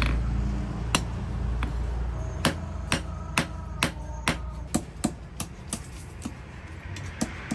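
Hammer blows on rebar at an anvil: two spaced metal strikes, then a steady run of about two blows a second with a faint ring.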